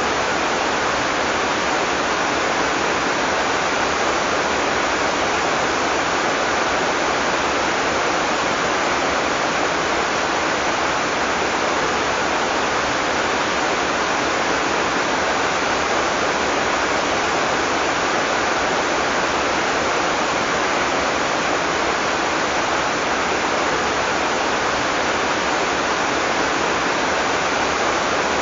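Heavy tropical rain falling steadily: a dense, even hiss with no thunder.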